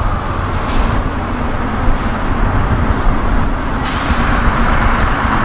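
Scania semi-trucks hauling tank trailers drive past with their diesel engines running. There are two sudden air-brake hisses, one about a second in and a louder one near four seconds.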